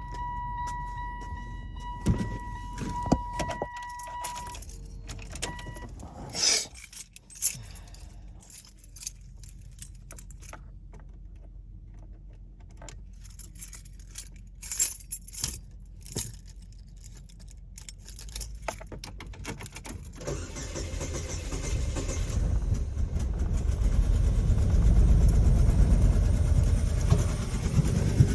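A steady car warning chime sounds with keys jangling and sharp clicks at the ignition. About two-thirds of the way through, the 2001 Saturn L-series engine starts and runs, getting louder.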